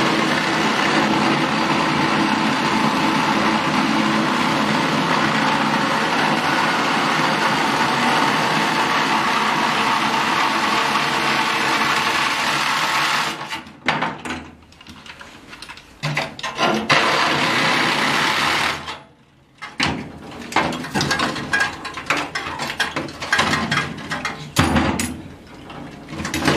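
Cordless drill running steadily against the rusted sheet metal of the floor for about 13 seconds, then stopping abruptly. Irregular clanks and knocks of metal parts and tools being handled follow.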